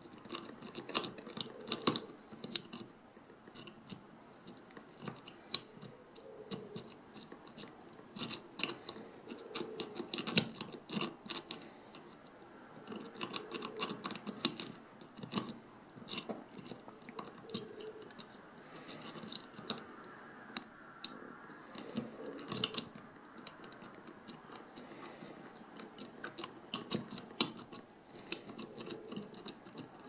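Steel lock-pick rake scraping and clicking over the pins of a Bell Ballistic 500 cable lock's pin-tumbler cylinder while a tension wrench holds it: many small irregular clicks and ticks, with soft handling rustle. The raking does not open the lock.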